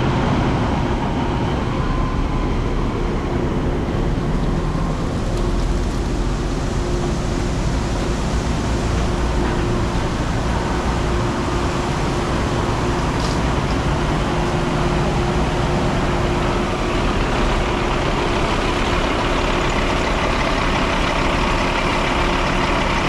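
Heavy corn-harvest machinery running steadily: a loud, even engine-and-machine noise that holds the same pitch and level throughout.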